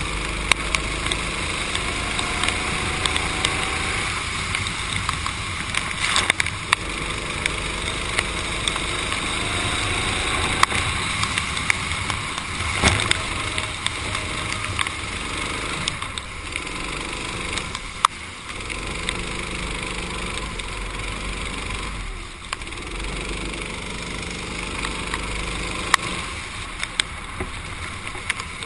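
Racing kart engine running hard around a wet track, its pitch climbing along the straights and falling away when the throttle is lifted for corners. Over it comes a steady hiss of wind and water spray, with scattered sharp clicks.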